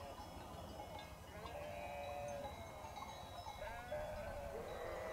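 Sheep bleating, several separate calls a second or so apart.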